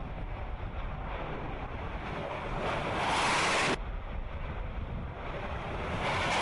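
Jet aircraft engines on a carrier flight deck: a steady rushing noise, with wind on the microphone, that jumps louder about two and a half seconds in for about a second and again near the end as a jet launches off the deck.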